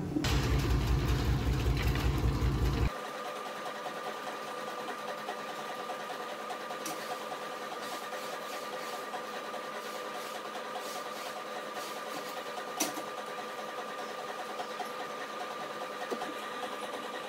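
A small machine running: a loud, low, rhythmic rumble for about the first three seconds that cuts off suddenly, then a steadier, lighter buzzing hum with a couple of sharp clicks near the end.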